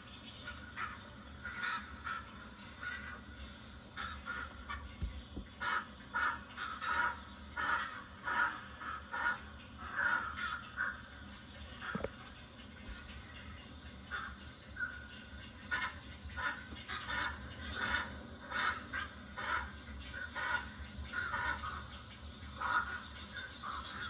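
Little blue heron giving short, harsh squawking calls, one or two a second, with a brief lull about halfway through.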